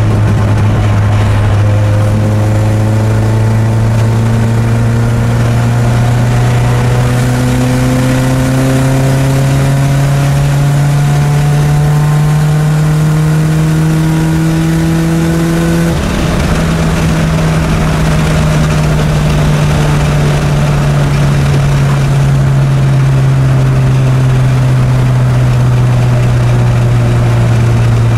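Engine of a 2004 Mitsubishi Lancer Ralliart, a 2.4-litre inline-four, heard from inside the cabin as the car accelerates in gear, its pitch rising slowly. A little past halfway the throttle is lifted and the engine note eases, then falls slowly as the car slows.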